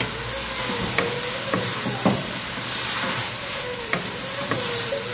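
Greens and sliced beef sizzling in a nonstick wok as they are stir-fried, with a wooden spatula scraping and knocking against the pan every half second or so.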